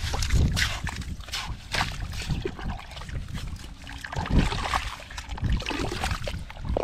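Hands digging and scooping wet sand and mud, with irregular squelches and scrapes over a steady low rumble.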